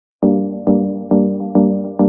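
Electronic intro music: a synthesizer note struck about twice a second, each with a sharp attack that fades away, starting just after a brief silence.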